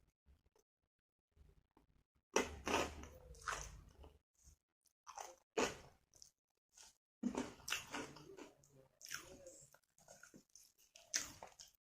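A person biting and chewing crunchy fried food, in several crunchy bouts with short pauses between them, starting about two seconds in.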